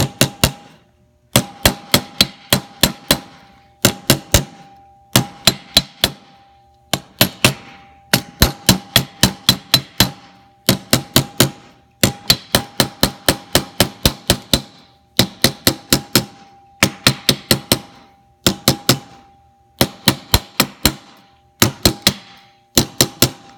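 A hammer tapping a bearing back into a compressor pump's drive pulley at the connecting-rod end. The taps are light and quick and come in short runs of several strikes with brief pauses, worked evenly around the bearing to seat it. Each run leaves the metal ringing.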